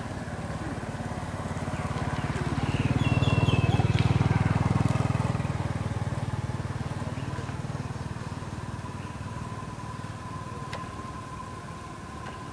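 A motor vehicle engine passing by, growing louder about three to five seconds in and then slowly fading away.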